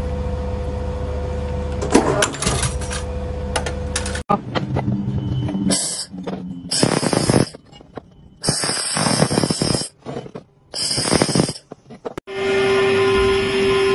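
Handheld laser welder welding a seam on a steel block, sounding in four short bursts of hiss and spark crackle. Before it a steady machine hum with a held tone plays, and near the end a new steady tone starts.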